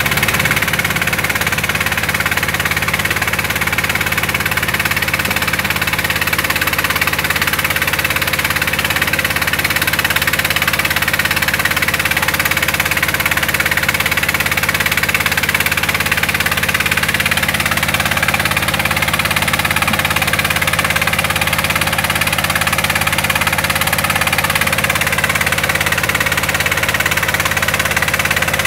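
Mobile rice-milling machine running steadily as it husks paddy: a constant engine drone with a dense, even whir from the milling machinery.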